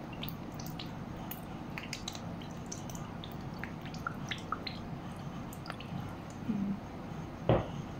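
Squid cooking in a pan of its own liquid and seasoning: a steady low bubbling with many small pops and ticks, and one dull knock about seven and a half seconds in.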